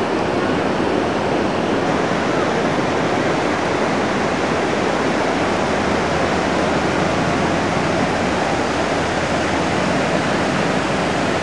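Ocean surf breaking on a sandy beach: a steady, even wash of noise with no let-up.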